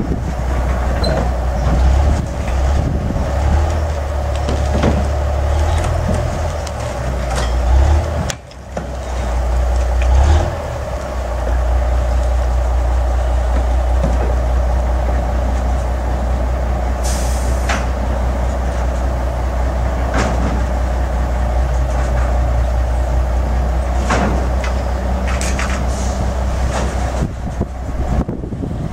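Diesel engine of an old lattice-boom crawler crane running steadily under load, with a steady machinery drone, while it holds and slews a narrowboat on its slings. A brief hiss comes about two-thirds of the way through.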